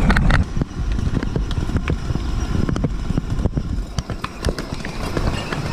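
Children's electric ride-on toy jeep rolling along a rough asphalt road, its hard plastic wheels crunching with scattered small clicks and crackles. A louder low rumble stops about half a second in.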